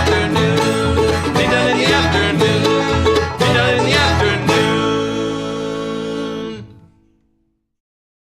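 Bluegrass band with banjo and guitar playing the closing bars of a tune; a final chord is struck about halfway through, rings out and fades away to silence.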